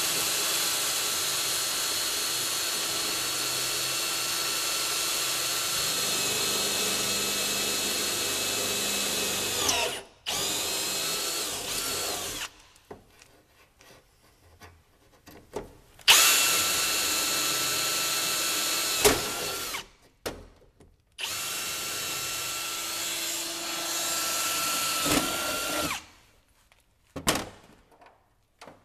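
Cordless drill running at speed, drilling rivet holes up through a snowmobile's metal running board bracket and tunnel. It comes in several runs: one of about ten seconds, a short one, then two of about four and five seconds with pauses between, and a brief burst near the end.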